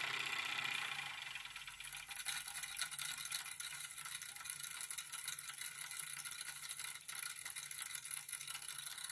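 Jensen #65 toy live steam engine running on its own, a rapid, even patter of exhaust beats and light mechanical clatter over a steam hiss. The sound dips for about a second near the start, then picks up again at a steady pace.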